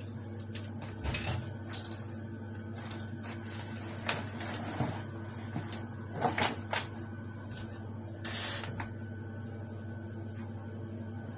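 Scattered soft thumps and rustles from a kitten pouncing and batting at a dangling wire on a fabric couch, about five short bursts, over a steady low hum.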